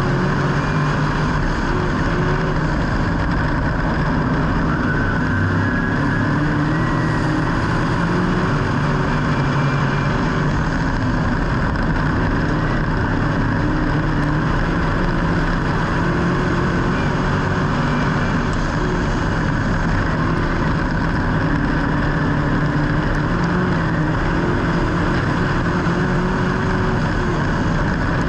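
Vehicle engines running steadily, their pitch wavering up and down a little.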